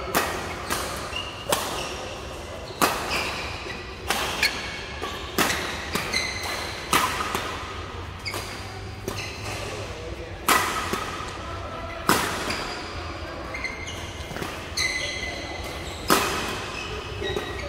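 Badminton rackets striking the shuttlecock in a fast doubles rally: sharp smacks every half second to two seconds, each echoing in a large hall. Short high squeaks of court shoes on the mat come between hits, with players' voices in the background.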